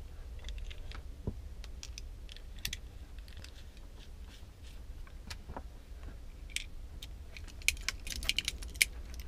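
Scattered small metallic clicks and ticks of hands handling and twisting apart a 12-volt cigarette-lighter plug. The clicks come faster near the end as a multitool is brought to it.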